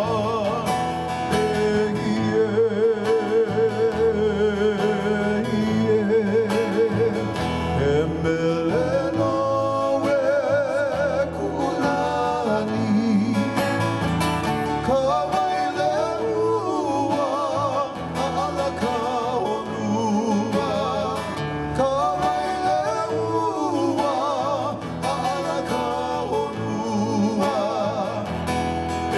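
Hawaiian song accompanying hula: a singing voice with a wide, wavering vibrato over plucked guitar.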